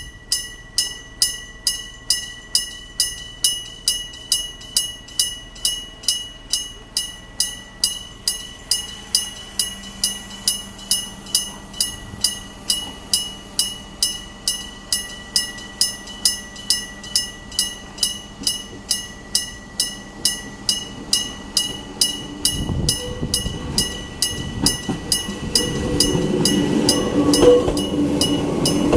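Level-crossing electric bell struck steadily about twice a second, each stroke ringing on. From about 22 seconds in, a Gakunan Railway 8000-series electric train rumbles up and passes over the crossing, growing louder while the bell keeps striking.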